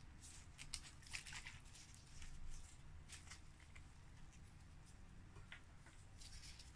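Near silence: faint room hum with a few scattered light clicks and rustles.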